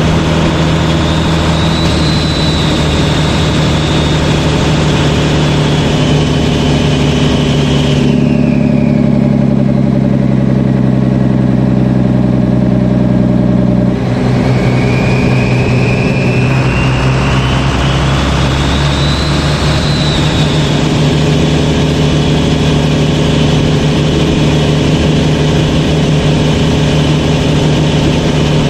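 12-valve Cummins diesel engine with a 62/65/14 turbocharger, running under a steady low drone while the turbo whistles loudly. The whistle rises to a high held pitch and then falls away and stops about a third of the way in. After a few seconds with only the engine drone, it rises again to the same high pitch and holds on.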